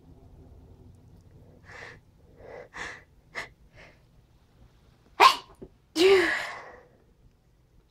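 A few short catching breaths, then a sneeze about five seconds in: a sharp burst followed at once by a longer, louder one that trails off.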